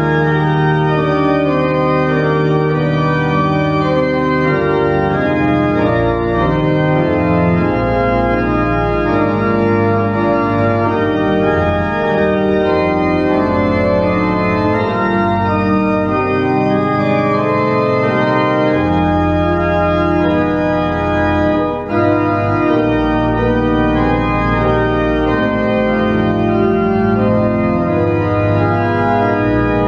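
Church pipe organ playing sustained chords over a deep, moving bass line, with a brief break between phrases near the end.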